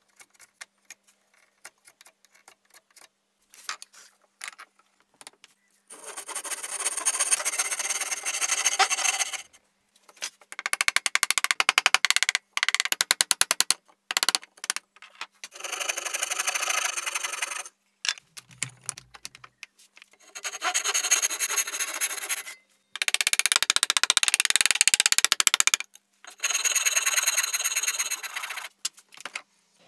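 A flat metal hand tool scraping along a wooden handle in repeated strokes, each about two to three seconds long with short pauses between. Faint small clicks come first.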